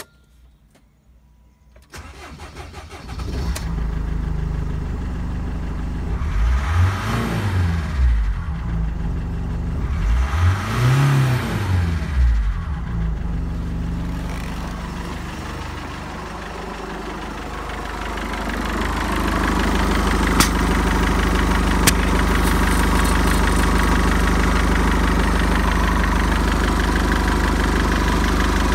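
Mercedes-Benz OM611 2.2 CDI four-cylinder common-rail diesel cranking and starting from cold about two seconds in, then idling and revved up and back down twice. Later it is heard close up from the open engine bay, idling steadily and louder, with a couple of sharp clicks.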